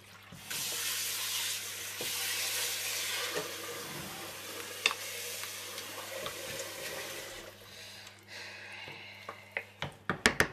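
A kitchen tap runs into a steel sink as a steady hiss that starts abruptly and cuts off after about seven seconds, while a wooden spoon mixes sauced spaghetti in a glass baking dish. Near the end come a quick run of sharp knocks from the spoon or utensils against the dish and sink.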